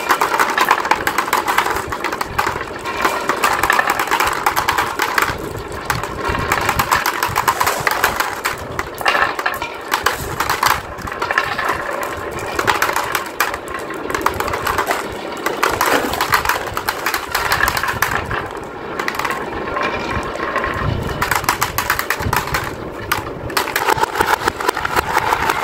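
Dozens of glass marbles rolling and clattering down carved wooden marble-run tracks, swirling around a carved wooden bowl and dropping through its hole into a plastic toy dump-truck bed: a continuous dense rattle of clicks that swells and eases every few seconds.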